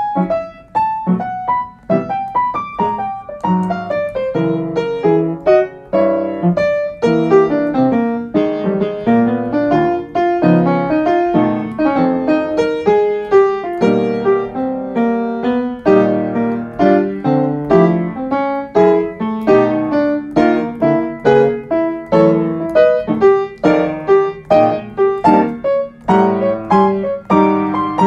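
Piano music: a continuous run of quick notes and chords.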